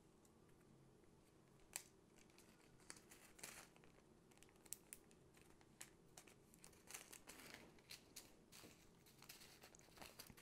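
Faint crinkling of small plastic zip-lock bags of diamond painting drills being handled and pressed shut, with many short crackles and clicks that come thicker after the first few seconds.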